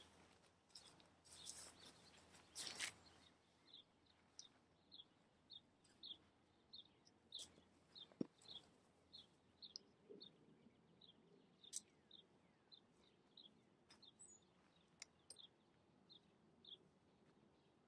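A bird chirping over and over, faintly, a short falling chirp about twice a second from about four seconds in. Before that, tent nylon rustles as it is handled, and a single sharp click sounds about eight seconds in.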